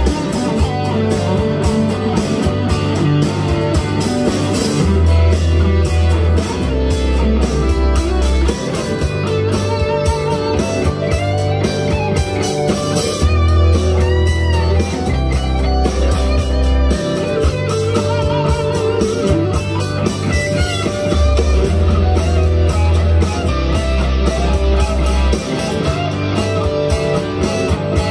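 Electric guitar, a Firefly FFLPS Les Paul-style copy, played through an amp over a backing track with bass and drums.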